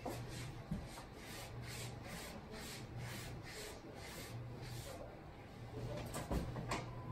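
Rhythmic rubbing strokes, about three a second, that stop about five seconds in, followed by a couple of sharp clicks near the end, over a low steady hum.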